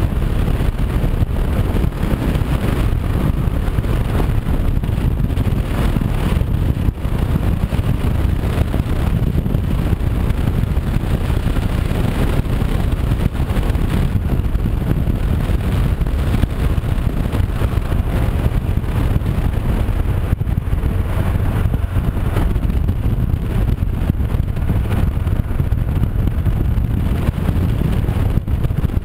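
Steady riding noise on a Honda CB500X at road speed: wind buffeting the camera microphone over the parallel-twin engine running underneath.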